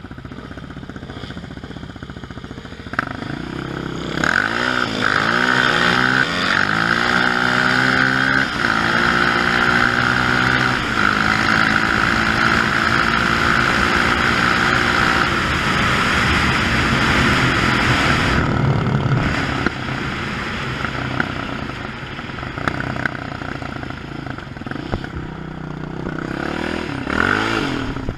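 Yamaha Raptor 700 quad's single-cylinder four-stroke engine accelerating hard, its pitch climbing and falling back with several upshifts, then held at speed with a lot of rushing wind noise. It eases off for a while and briefly revs again near the end.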